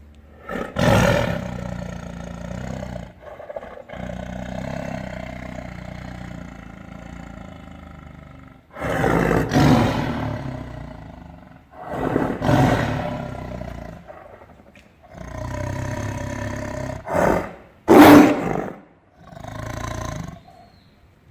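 Tiger roaring again and again: a long roar that tails off into a drawn-out rumble over the first eight seconds, then five shorter roars with short gaps between them. The loudest, sharpest roar comes about eighteen seconds in.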